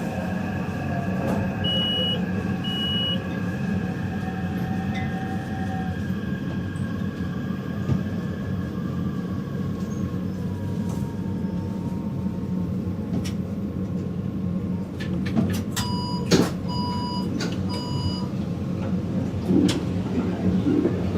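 Interior of a Taipei Metro train: a steady rumble of the carriage, with a faint electric-motor whine falling in pitch in the first few seconds. About two-thirds of the way through there is a clatter, then three short, evenly spaced beeps, like a metro door chime.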